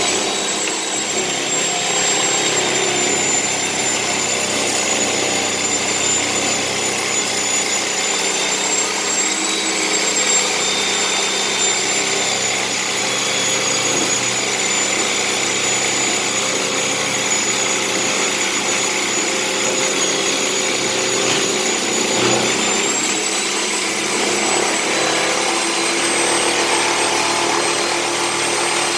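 Power tool cutting through the welded sealed tub of a Candy washing machine, opening it to replace the drum bearings: a steady high whine over a continuous rasp.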